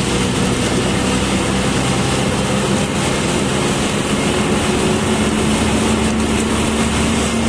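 Bus engine running under way with tyre and road noise, heard from inside the cabin of a moving bus: a steady hum whose engine note climbs slightly about halfway through.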